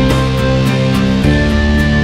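Instrumental background music with guitar and a steady beat, changing chord about a second in.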